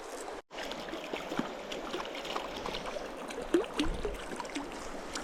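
Steady rush of running stream water, with scattered small clicks and taps. The sound cuts out completely for a moment about half a second in.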